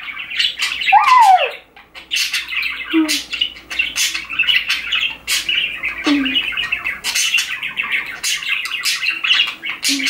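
Pet budgerigars chattering nonstop: a steady stream of warbling, clicks and sharp squawks, with a short falling whistle about a second in.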